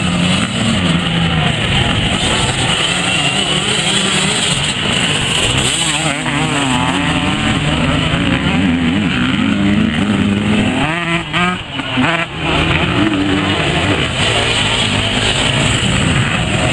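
A field of off-road racing motorcycles running together, many engines overlapping, their revs rising and falling over and over.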